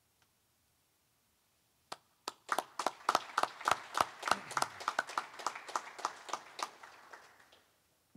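A small group of people clapping: two lone claps about two seconds in, then steady applause of about four claps a second that thins out and stops near the end.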